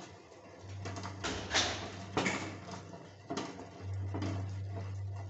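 Water at a rolling boil in a steel pot, with eggs knocking against the pot in a few sharp clatters. A low steady hum comes in briefly about half a second in and again from just before four seconds.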